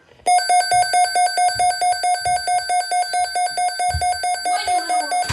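Midland WR400 weather radio's alert alarm going off for an incoming weather alert: a loud, rapidly pulsing electronic beep, about five beeps a second, that starts suddenly just after the start.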